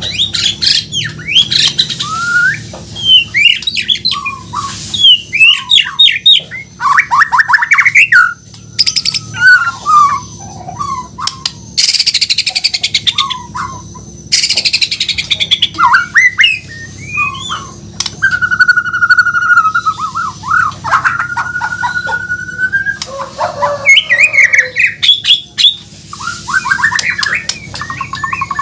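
White-rumped shama (murai batu), Borneo form, singing a long, varied song: quick whistles and pitch glides, rapid trills and harsh chattering notes, with a long held whistle about two thirds of the way through.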